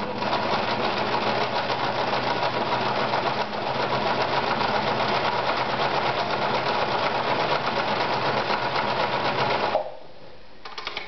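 Victoria Super Deluxe 118F oscillating-hook sewing machine running at a steady fast speed, sewing a dense wide zigzag through leather: a rapid, even needle clatter with a brief slowdown a few seconds in. It stops suddenly about a second before the end, followed by a few faint clicks.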